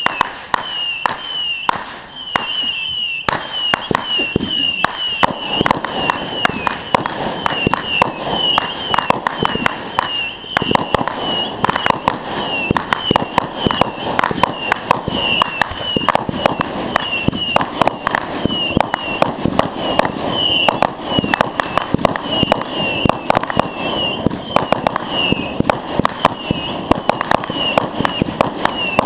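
Fireworks going off in a rapid, continuous run of pops and bangs, many a second, with no pause.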